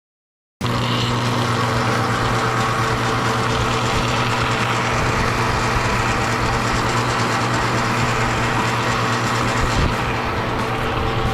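Electric metalworking tool working steel on a wire stripper, running steadily with a low mains hum under a broad rushing noise. It starts abruptly about half a second in and does not change.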